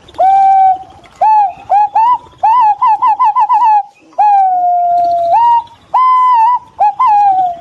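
Green pigeon singing: a string of clear, fluting whistles, some notes swooping up, a quick run of short notes, then one long drawn-out whistle that slowly falls before more short rising notes.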